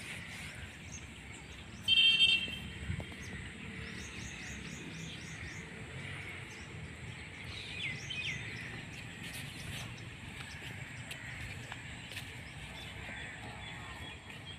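Outdoor background noise with birds chirping and twittering: a quick high trill and a few falling chirps. A brief loud sound cuts in about two seconds in.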